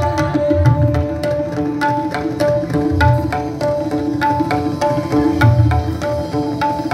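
Instrumental Carnatic dance music, without singing: a short melodic phrase repeating over sharp drum strokes, with occasional deep drum hits.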